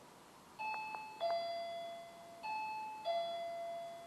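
Motion-detector alarm giving a two-tone electronic ding-dong chime twice, a higher note falling to a lower one each time, each note ringing and fading. Two faint clicks come with the first chime.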